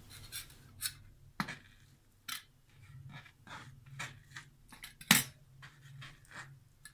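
Chopped onion being swept by hand off a plastic cutting board into a stainless steel bowl: a string of short scrapes and light knocks, with one sharper knock a little after five seconds in.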